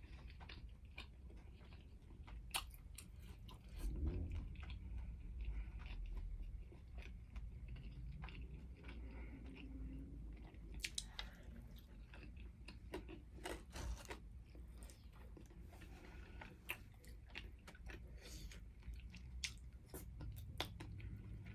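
Faint chewing of a mouthful of chicken wing, with small crunchy clicks scattered through it and a few slightly louder crunches.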